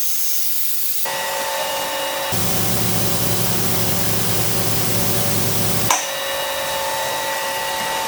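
CNC lathe machining with coolant spraying: a steady hiss of coolant and cutting noise with a few steady whine tones from the spindle. The sound changes character a few times, a low hum joins for a few seconds in the middle, and a sharp tick sounds near the end.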